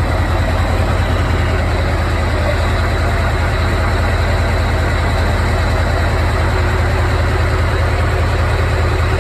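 Scania V8 diesel truck engine idling steadily with a low, even rumble.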